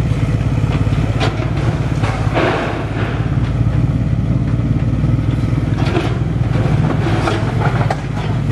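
SANY mini excavator's diesel engine running steadily under load while its bucket works a brick wall, with scattered knocks and a short burst of crumbling brick and tile about two and a half seconds in.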